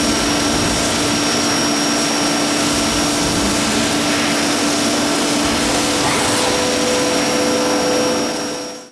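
Colchester Tornado 220M CNC lathe running, its spindle turning a workpiece in the chuck: a steady, loud hissing whir with a constant whine. About six seconds in, the low hum shifts up in pitch as the machine winds down, and the sound fades out near the end.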